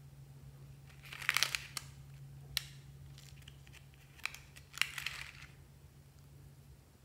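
Stiff glitter paper crinkling and rustling as it is handled and folded, in two short bursts with a few sharp crackles.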